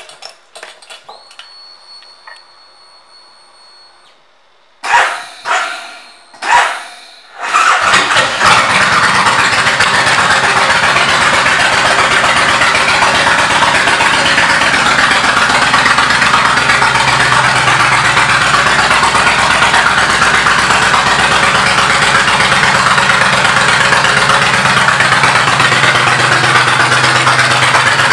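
Kawasaki Vulcan 1600 Classic's V-twin, fitted with Vance & Hines pipes, being started: a few short bursts about five seconds in, then it catches at about eight seconds and idles steadily.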